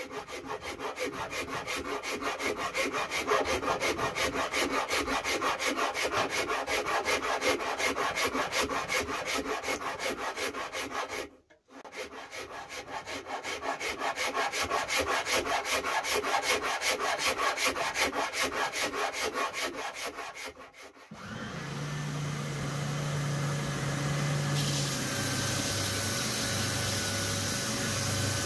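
A hand rasp is worked back and forth over the wooden guitar body in an even rhythm of strokes, carving the arm and belly contours, with a brief pause about halfway. About 21 seconds in it gives way to a Triton oscillating spindle sander with its sanding-belt attachment running steadily, and a few seconds later a hiss joins in as wood is pressed against the belt.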